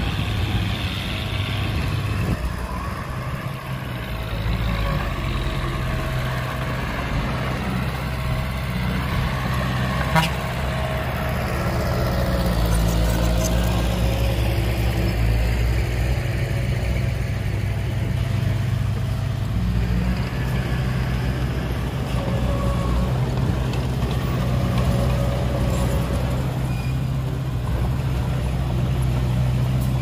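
Heavy diesel engine running steadily, with one sharp knock about ten seconds in.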